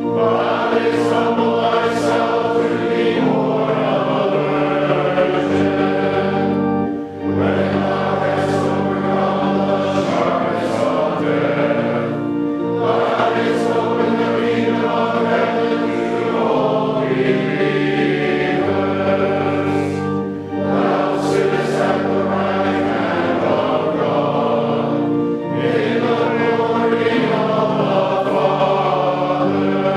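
Choir singing a church hymn in sustained phrases, with brief breaks between lines.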